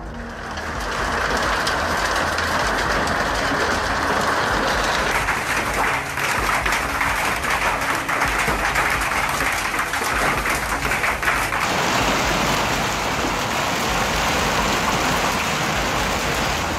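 Hail coming down hard: a dense, continuous clatter of hailstones striking the ground and nearby surfaces, its character changing abruptly twice.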